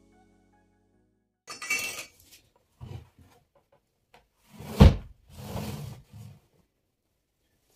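A tyre chair upholstered in velvet is tipped over and set back upright on the floor: rustling and scraping of the padded fabric, a small knock, and one loud thump a little before five seconds in as the chair lands, then more rustling. A few notes of background music fade out at the very start.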